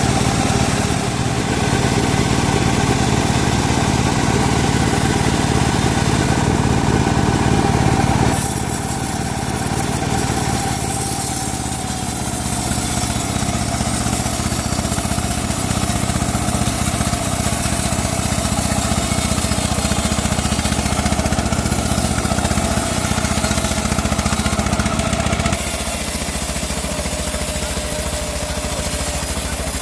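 Homemade bandsaw mill running steadily while sawing teak. A high hiss grows stronger about eight seconds in, and the low drone eases near the end.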